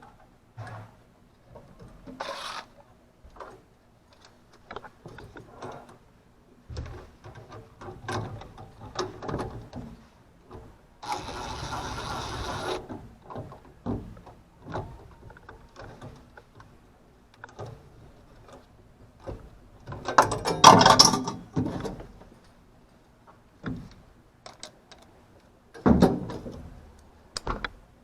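Irregular clicking, rattling and knocking of hand work on equipment. There is a short hiss about eleven seconds in and a louder clatter about two-thirds of the way through, over a faint steady hum.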